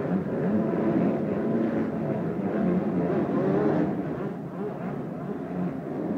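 Several motocross bikes' engines revving as they race round a supercross track, their pitch rising and falling as the riders open and close the throttle.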